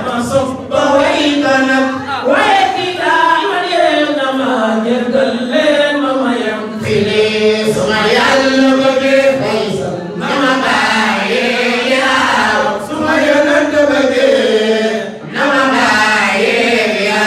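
Several men chanting a religious song together into handheld microphones, the voices amplified, with no break in the singing.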